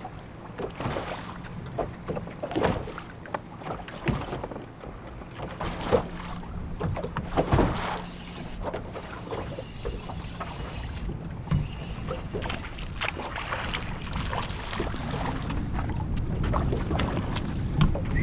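Small waves slapping and knocking irregularly against the hull of a bass boat, over a steady wash of water and light wind. A faint steady hum stops about halfway through.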